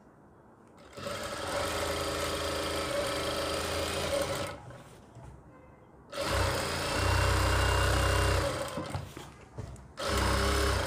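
Jack industrial single-needle sewing machine stitching a basting seam through fabric in three runs: about three seconds starting a second in, then about two seconds, then a short run near the end, each at a steady stitch rate.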